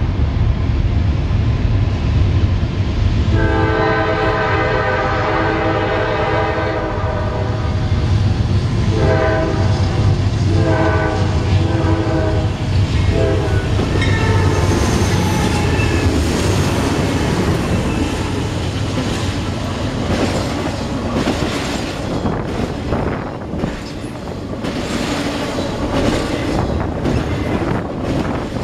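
Freight train locomotive with a diesel rumble sounding its multi-note horn: one long blast, then three shorter ones. Then the cars roll past with the wheels clattering rhythmically over the rail joints.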